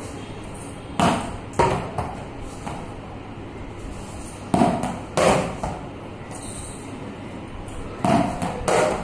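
Plastic cricket bat hitting a tennis ball: three pairs of sharp smacks, the two in each pair about half a second apart, each echoing briefly off hard walls.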